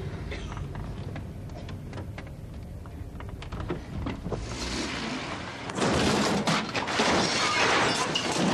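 A car's engine running at low speed, then from about six seconds in a loud, drawn-out crash as the wooden window frames carried on the car's roof strike the top of a garage doorway and splinter and break apart.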